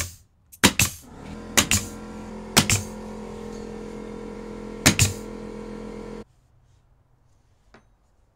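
DeWalt pneumatic flooring stapler struck with a mallet to drive staples into bamboo floorboards: five sharp bangs, most of them doubled, about a second apart and then one after a longer gap. An air compressor hums steadily under them and cuts off suddenly about six seconds in.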